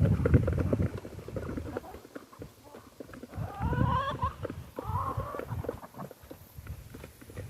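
Poultry calling: two short wavering calls, about four and five seconds in, over low thumps and rustling.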